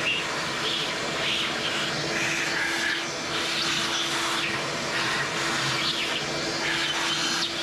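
Vacuum cleaner running steadily, its hose nozzle sucking sand out of the cooling passages of a two-stroke jet ski engine; the hiss of the air rises and falls as the nozzle is moved over the openings.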